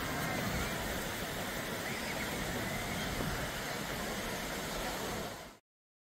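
Beach ambience: steady surf wash and wind rumbling on the microphone, with faint distant voices of beachgoers, fading out quickly near the end.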